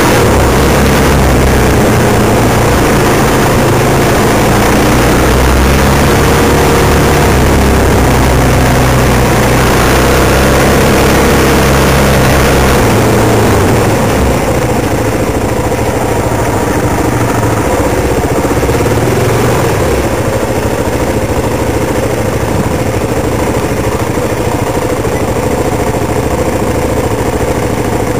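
Off-road vehicle's engine running loudly while riding along a dirt trail, dropping to a lower, steady idle about halfway through.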